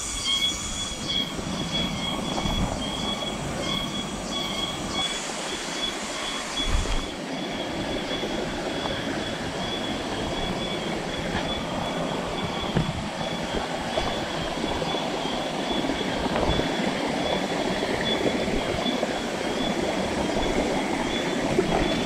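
Steady rush of stream water, growing a little louder, under the rustle and scuffs of a person scrambling over rocks, roots and leaf litter. A high, pulsing trill runs through the first several seconds and then fades out.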